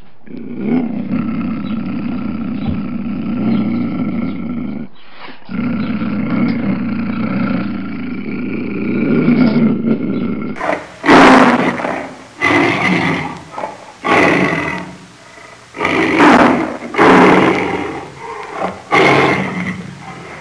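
Lions vocalising. First comes a continuous low growling. Then, about halfway through, a male lion gives a run of loud roars, each about a second long, about one a second.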